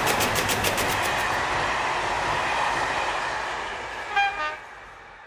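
Rapid clatter of split-flap board flaps turning, stopping about a second in, over a steam train sound effect that runs steadily, gives a short whistle about four seconds in and then fades out.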